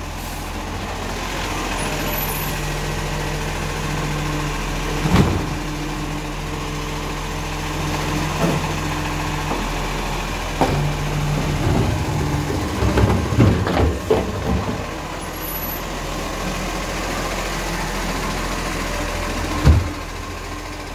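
Iveco side-loader recycling truck running, its engine raised to a steady drone while the automated arm lifts a wheelie bin and tips it into the hopper. Knocks and clatter come as the bin is shaken and the recyclables drop in. The drone eases after about twelve seconds, and a single thud comes near the end.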